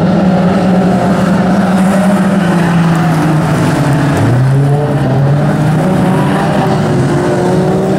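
Several stock car engines running together as the cars race round the oval, with one engine note climbing as a car accelerates about four seconds in.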